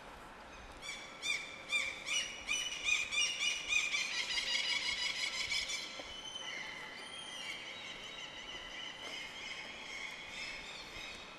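A bird calling in a rapid series of loud, arched, high notes, about two to three a second, for some five seconds, then softer and more drawn-out high calls.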